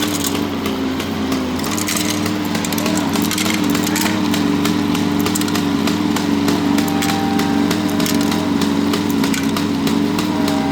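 Small electric motor of an animated coal-mine accessory on a model railroad layout, running with a steady buzzing hum that wavers slightly in pitch, over light rapid clicking.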